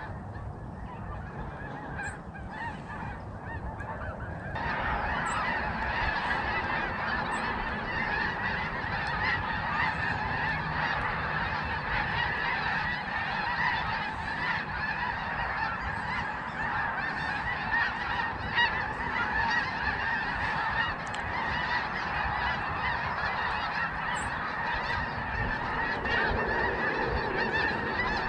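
Large flocks of migrating geese honking overhead: a dense, continuous chorus of many overlapping calls that gets louder about four and a half seconds in.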